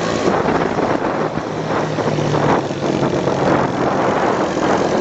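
Small motorcycle engines running steadily at road speed, mixed with steady rushing wind and road noise.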